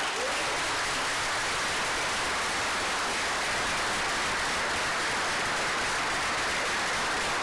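Audience applauding: dense, even clapping that starts abruptly and holds at a steady level.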